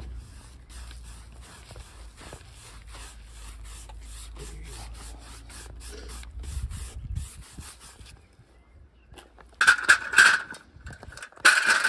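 Sawdust brushed off the sawn face of a large oak stump by gloved hands, a run of soft rubbing scrapes. Near the end an aluminium ladder is laid across the stump top, and it clatters and scrapes loudly twice.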